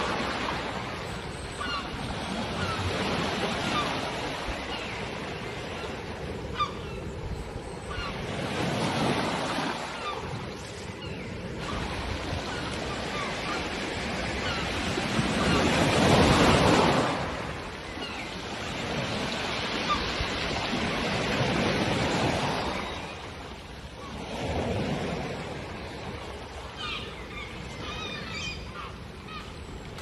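Sea waves breaking and washing up a pebble beach in repeated surges every few seconds, the biggest about halfway through. Seagulls call faintly now and then over the surf.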